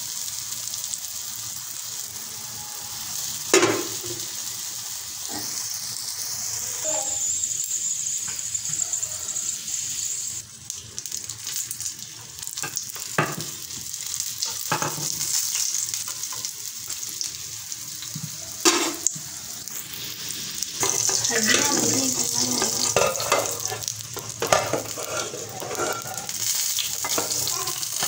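Square pieces of folded dough sizzling steadily in shallow oil on a flat griddle, with a few sharp knocks along the way. For a few seconds past two-thirds through, the sizzling grows louder and more crackly.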